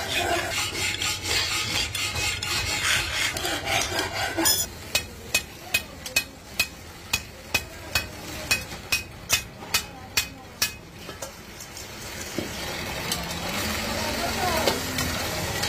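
A steel blade scraping and rasping over cast aluminium rings in a steel mould for about four seconds. Then a metal-working press strikes sharply about twice a second for some six seconds, and a steadier machine hum follows.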